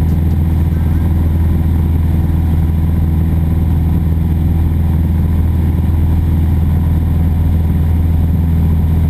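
Piston engine and propeller of a single-engine light aircraft droning steadily in flight, heard inside the cockpit, with no change in pitch.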